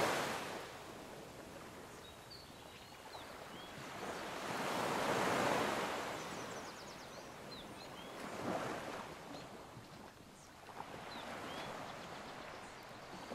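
Ocean waves washing in and fading, rising and falling slowly three or four times, with a few faint high chirps over them.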